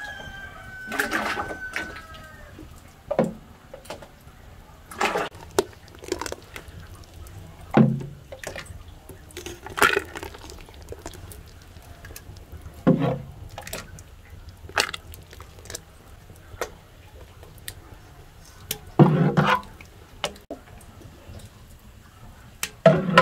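Hot malt liquid being scooped from a large pot and poured into an enamel bucket: a short pouring splash every two to three seconds, with small drips between.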